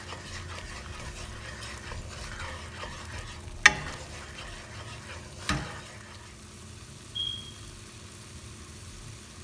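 Thick tomato-and-spice masala frying in oil on low heat while it is stirred in the pan, a low steady sizzle. Two sharp knocks of the stirring utensil against the pan come about a third and just over halfway in, and a brief high tone sounds near three-quarters.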